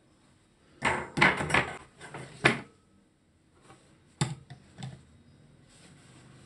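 Square aluminium baking pan clattering against a wire cooling rack as it is turned upside down, a quick run of sharp metal knocks over about two seconds. A few more single knocks follow around four seconds in as the pan is moved on the rack and lifted off the cake.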